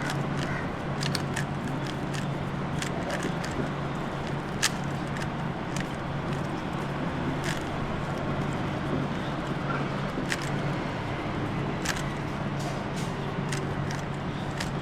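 3x3 Rubik's Cube being scrambled by hand: irregular plastic clicks of the layers turning, over a steady low hum.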